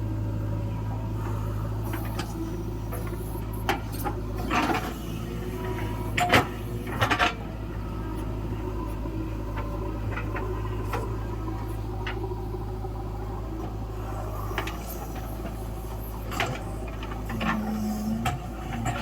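Engine of heavy earthmoving machinery running steadily at a low hum, with a handful of sharp knocks and clanks, several close together about four to seven seconds in and a couple more near the end.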